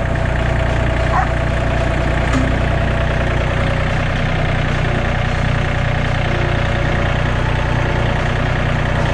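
Farm tractor engine running steadily at a low, even speed.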